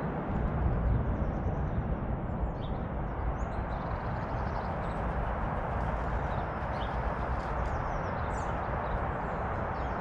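Steady outdoor background rumble and hiss, with faint, brief chirps from small garden birds scattered through it.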